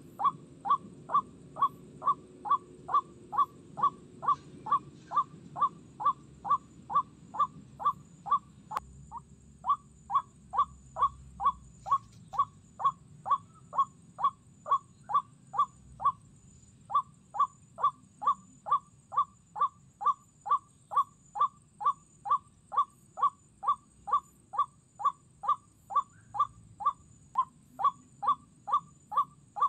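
White-breasted waterhen's 'kru-ak' call, repeated evenly about twice a second with a few brief breaks, as used to lure waterhens to a trap.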